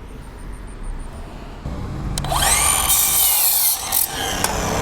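A power saw starts up about two seconds in and cuts through a 2x2 wood board. Its whine drops in pitch as the blade bites into the wood.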